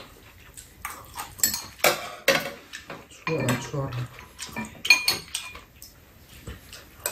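Metal spoons and chopsticks clinking and scraping against ceramic bowls and a metal tray while eating, a run of irregular sharp clinks.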